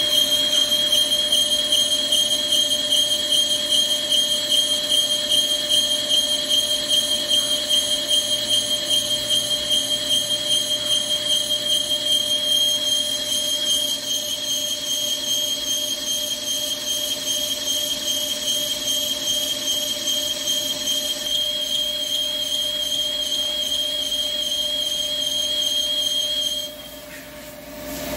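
Carbide insert turning a ductile iron roll on a Hankook CNC lathe: a steady high-pitched squeal from the cut with a rapid pulsing waver, over the lathe's lower running hum. The squeal stops abruptly near the end and the sound drops to a quieter hum.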